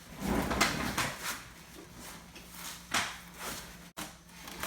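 Refrigerator being rolled on its wheels over a tile floor: rolling and scraping with a few knocks. The loudest come about half a second in, just after a second, and near three seconds.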